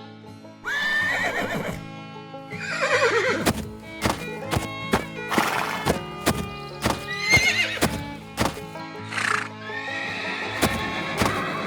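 Background music with cartoon horse sound effects: wavering, falling whinnies several times and a run of regular hoof clip-clops starting about three seconds in.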